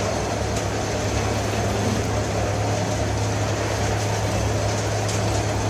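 Industrial hot air popcorn popper running: a steady low hum under an even rush of blower noise, with a few faint ticks.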